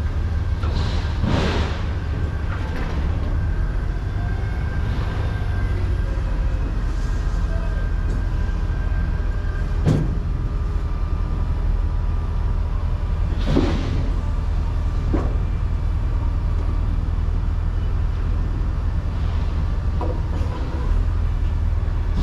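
Steady low rumble of a vehicle running, with a couple of brief whooshes and a sharp click about ten seconds in.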